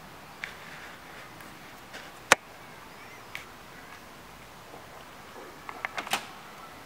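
Handling noise from a handheld camera over a faint steady hiss. A single sharp click comes about two seconds in, and a quick cluster of knocks and clicks comes about six seconds in as the camera swings.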